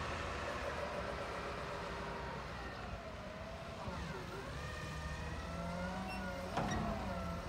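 Mack LR garbage truck engine and hydraulics, a pitched whine over a low rumble that dips about four seconds in and then climbs and holds as the engine revs to work the McNeilus Curotto Can arm lifting a cart overhead. A short sharp knock near the end.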